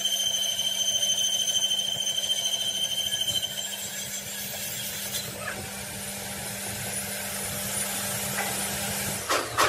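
Power tool running in metalwork: a steady high whine over a low hum. The whine fades out about three and a half seconds in, leaving a steady hiss.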